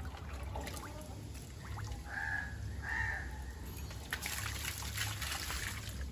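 Water poured from a mug over a wet dog's coat, splashing and trickling from about four seconds in. Before that, a bird calls twice, two short harsh calls about a second apart.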